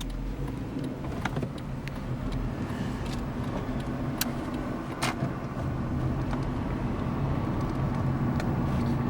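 Car engine and road noise heard from inside the cabin while driving, a steady low rumble that slowly grows louder as the car picks up speed, with a few light clicks.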